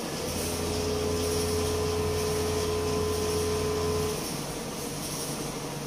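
An electric motor runs with a low hum and a steady whine, then cuts off abruptly about four seconds in.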